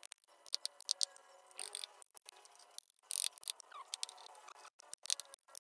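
Hand tools cutting and scraping wood: irregular sharp clicks and taps with a few short scraping strokes, the marks of hand carving.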